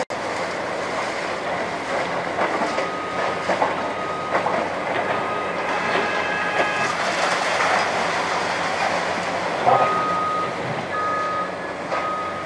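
Demolition of a reinforced-concrete building by an excavator: concrete and rubble crunching and clattering steadily, with a few sharper knocks and a louder crash near ten seconds in. A machine's backup alarm beeps at intervals over it.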